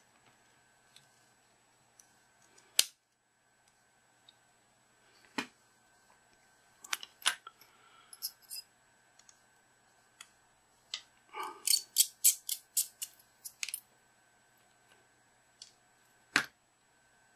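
Small sharp clicks and taps of plastic and metal as a Samsung GT-S7560 smartphone is taken apart by hand with a precision screwdriver. A quick run of about eight clicks comes about two-thirds of the way through.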